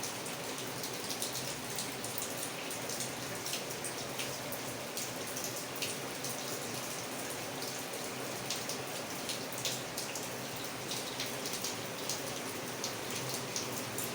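Steady rain falling: an even hiss with many separate drops ticking sharply as they land.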